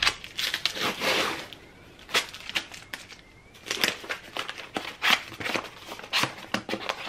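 Plastic-wrapped packs and small cardboard boxes rustling, crinkling and knocking as they are handled in a cardboard shipping box, in irregular short bursts.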